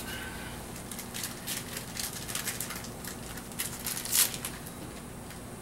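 Scattered light clicks and rustling from small parts being handled and fitted by hand, with one sharper click about four seconds in.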